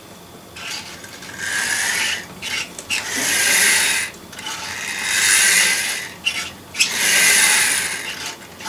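A 00 gauge 0-6-0 model tank locomotive running on a test track: its small electric motor and gear train give a rasping whir that swells and fades four times. The owner thinks the motor needs a new pair of brushes; it draws enough current to trip the controller.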